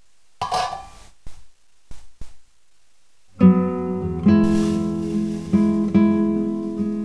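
A few short clanks and knocks of a cooking pot being handled on a glass-ceramic hob, then strummed acoustic guitar music starts about halfway and carries on as the loudest sound.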